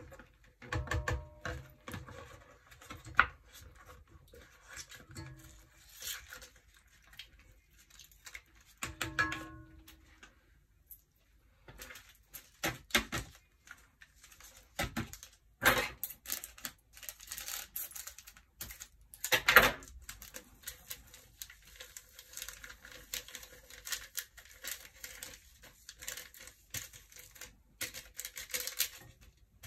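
Paper sachets of whipped-cream stabiliser being handled and torn open: irregular crinkling and tearing, with two louder rips past the middle.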